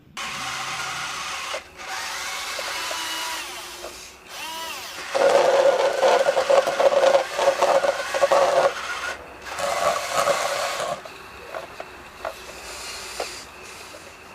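Toy bulldozer's small electric motor and plastic gears whirring in several bursts, loudest in the middle, then a few light clicks near the end.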